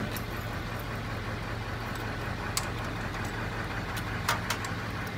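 Gait belt buckle and strap clicking as the belt is unfastened and pulled off: a few sharp clicks in the second half, the loudest about four seconds in. Underneath is the steady low hum of an idling engine.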